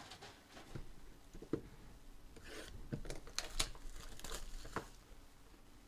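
Plastic wrapping on a sealed Panini Obsidian football card box crinkling and tearing as the box is handled and opened, a string of faint short crinkles and taps.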